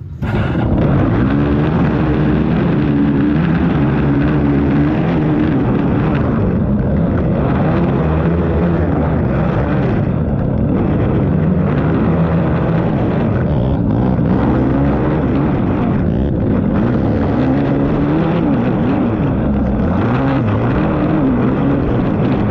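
Racing ATV engine ridden hard, its pitch rising and falling as the throttle is worked and the gears change. The engine sound comes in abruptly just as it starts.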